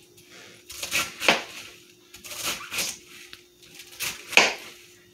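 Kitchen knife chopping through cabbage onto a plastic cutting board: about six sharp knocks, coming in pairs.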